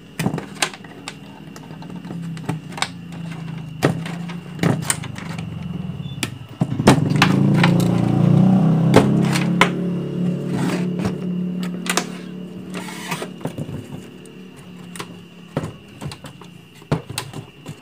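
Sharp plastic clicks and rattles as wire connectors are pulled off a CRT television's main circuit board one by one and the chassis is handled. A steady low drone swells about seven seconds in and fades over several seconds.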